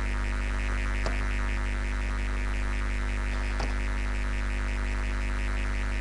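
Background music with a fast, even pulse over a steady low electrical hum. Two faint clicks sound, one about a second in and one past the middle.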